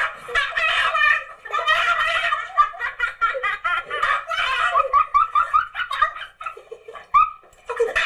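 A man laughing hard and continuously, with a run of short, rapid rising laughs near the middle.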